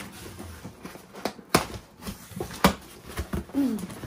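A cardboard parcel and paper packaging being handled and opened, with scattered knocks and rustles. A short falling hum comes near the end.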